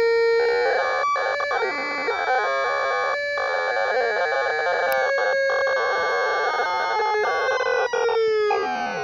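Electronic noise synth played by fingertips on its metal touch contacts: several high squealing tones held together, warbling, cutting out for a moment several times, and sliding down in pitch near the end.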